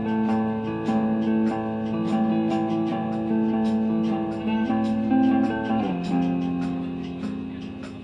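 Guitar playing sustained strummed chords in a steady rhythm, changing chord about six seconds in and growing quieter toward the end.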